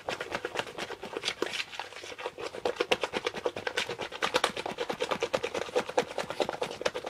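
Whisk beating thick waffle batter in a bowl, a fast, steady rhythm of scraping strokes against the bowl as lumps are worked out of the thick batter.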